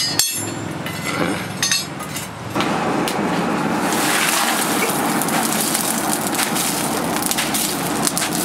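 A few metallic clinks of steel scrap being handled, then a charcoal forge fire crackling densely over a steady rushing hiss from about two and a half seconds in.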